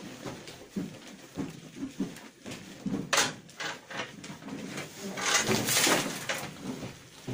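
Broken ore rocks pouring out of a metal bucket into a wheelbarrow, a loud rattling rush about five seconds in, after scattered knocks as the bucket is unhooked from the hand winch and lifted.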